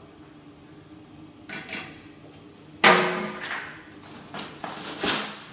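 Metal kitchenware knocking and clattering: a sharp knock about a second and a half in, a louder knock with a short metallic ring near three seconds, then a quick run of clattering near the end as pots and utensils below the stove bench are rummaged through.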